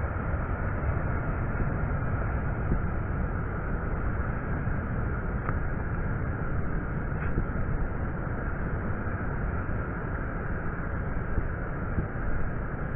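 Steady wind buffeting the microphone, mixed with ocean surf washing onto the beach.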